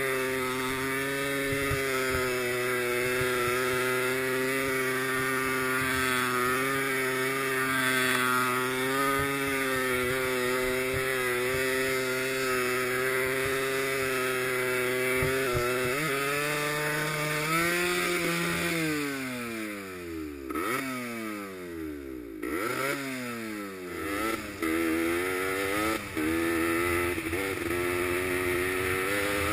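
Honda MTX 125 single-cylinder two-stroke enduro motorcycle engine under way at steady revs. About halfway through, the revs fall and rise sharply several times as the throttle is shut and opened again, then they settle back to a steady pull near the end.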